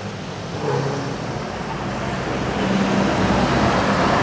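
Ferrari 458 Italia naturally aspirated V8s with Novitec aftermarket exhausts running at low, steady revs in slow traffic, with no revving. Street traffic noise grows louder in the second half.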